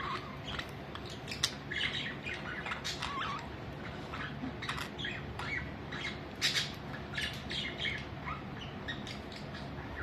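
A group of budgerigars chattering: a busy, irregular run of short squawks and chirps, with a louder call about one and a half seconds in and another past six seconds.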